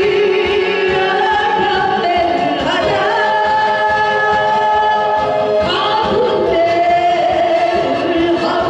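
A singer performing a Korean trot song over a recorded backing track, holding long notes that waver and moving to a new note twice.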